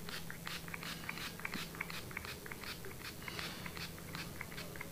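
Small fine-mist pump spray bottle being squirted over and over, a quick run of short, faint hissing puffs, about four or five a second.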